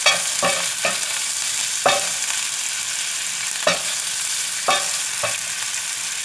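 Meatballs sizzling in hot oil in a pan, with a steady frying hiss. A wooden spatula knocks and scrapes against the pan several times at uneven intervals as they are stirred.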